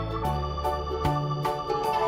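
Electronic music: held organ-like chords over a bass line that changes note about every half second, with a light, regular beat.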